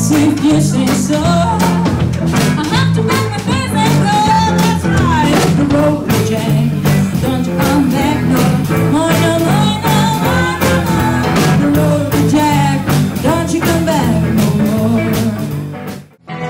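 Live 1950s-style rock'n'roll band playing: a woman singing over electric bass, guitar and drums, with a stepping bass line and a steady beat. The sound drops out abruptly near the end.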